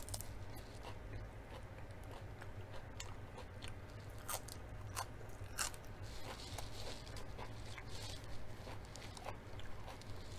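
A person chewing crisp food close to the microphone: irregular wet crunches and small bites, with a few sharper crunches around the middle.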